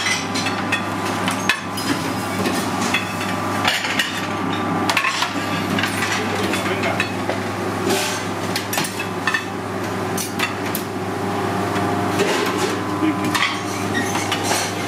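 Kitchen clatter: china plates and steak knives clinking and knocking on metal trays and a stainless-steel counter, many sharp knocks at irregular intervals. Underneath runs a steady machine hum.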